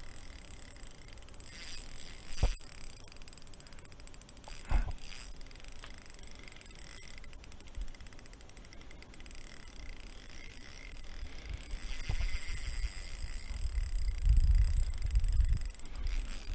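Handling sounds of a Shimano Soare spinning reel and light rod during a steady retrieve: faint reel winding, two sharp knocks in the first five seconds, and a low rumble that builds near the end.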